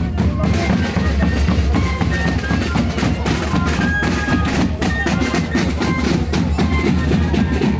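Live band music driven by drums, with a heavy bass drum beat and a steady stream of drum hits.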